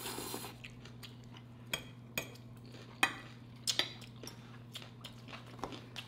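Cutlery clinking against plates while eating, a handful of short, sharp clicks at uneven intervals, over a steady low hum.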